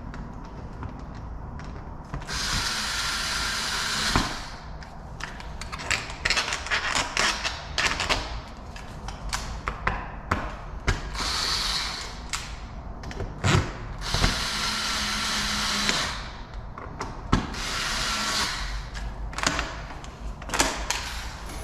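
Electric screwdriver driving in lock-mounting screws in three runs of about two seconds each, with clicks and knocks of the lock hardware being handled in between.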